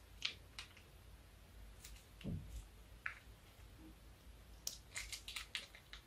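Runny slime squeezed out of a plastic piping bag: soft squishes and scattered small crackles, with a quick run of crackles near the end and one lower squelch a little after two seconds in.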